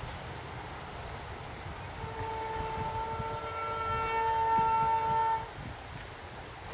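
Diesel locomotive's horn sounding one long blast of about three seconds, swelling louder and cutting off sharply, over a low rumble.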